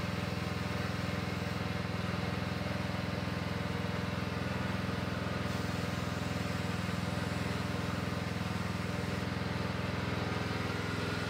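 Cub Cadet lawn tractor engine running steadily at an even speed.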